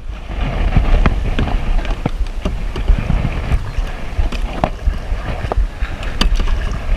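Kayak on moving river water, with wind rumbling on the microphone and scattered light knocks and clicks of gear against the hull.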